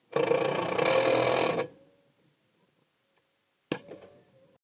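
Pneumatic wheel gun rattling loudly for about a second and a half during the pit-stop wheel change, then a single sharp click near the end.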